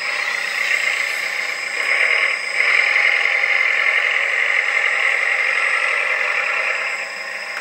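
Electronic sound module of a 1/14-scale RC hydraulic dumper playing a diesel engine, over the steady whir of the model's hydraulic pump and drive motors as it drives. It gets louder about two and a half seconds in.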